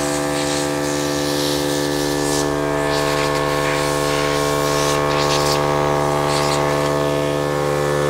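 Small electric air compressor (4 bar maximum) running with a steady motor hum, while compressed air hisses from the hose as it blows dust off the 3D printer's frame and rods.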